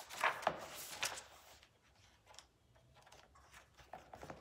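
A few soft taps and rustles in the first second and a half, as of things being handled on a desk, then quiet room tone with an occasional faint tick.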